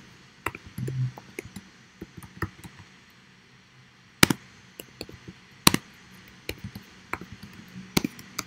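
Typing on a computer keyboard: irregular key clicks, with three louder key strikes about four, six and eight seconds in.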